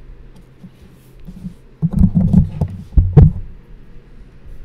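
Muffled low thumps and rubbing from a hand and pen moving on the drawing desk, in two short clusters about a second apart.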